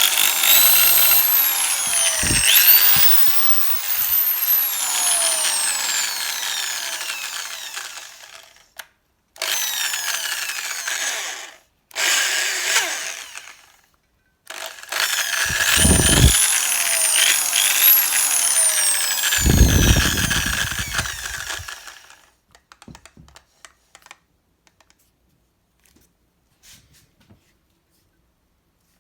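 Makita 6413 corded electric drill running without load, its motor whine rising and falling as the variable-speed trigger is squeezed and eased. It runs for several seconds, stops, gives two short bursts, then runs again before winding down about 22 seconds in, followed by a few faint clicks; it runs smoothly, in good working order.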